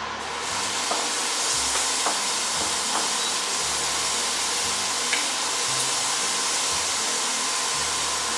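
Marinated chicken frying in oil in a pan, a steady sizzle that picks up just after the start, with a few light clicks of metal tongs against the pan.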